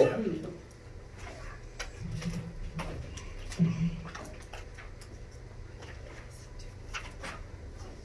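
Quiet classroom room tone with a steady low hum, a few faint murmured words in the first few seconds, and scattered faint clicks and taps.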